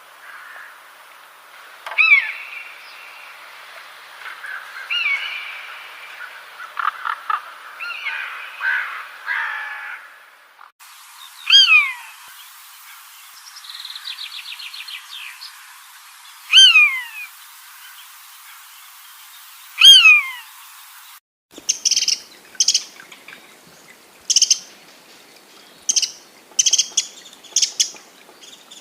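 Birds calling in three separate recordings: first a jumble of chirps and calls, then a loud call falling sharply in pitch that repeats about every four to five seconds with a fast trill between, and near the end short, sharp chirps in quick groups.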